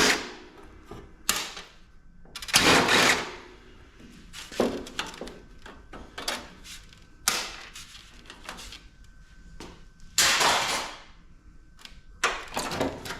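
Metal clanking and scraping in about seven separate bursts, a second or two apart, as the radiator is worked loose from a PTAC air-conditioner unit.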